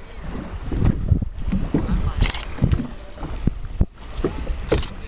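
Wind buffeting the microphone over water rushing past a moving boat's hull, with two short hissing splashes of spray.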